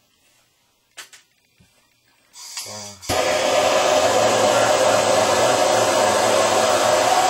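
A MAP gas torch comes on suddenly about three seconds in and burns with a loud, steady rushing noise while it heats a copper pipe joint for soldering. Before that it is nearly quiet, with a brief click about a second in.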